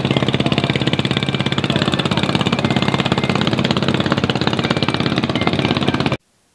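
An engine running steadily with a quick, even chugging beat, cutting off suddenly near the end.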